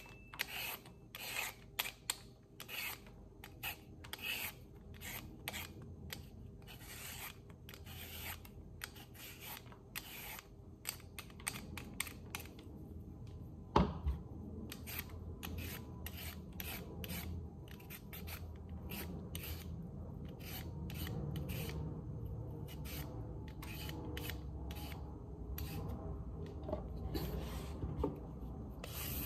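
Vegetable peeler scraping along a carrot in quick repeated strokes, shaving it into ribbons, with one sharp knock about halfway through.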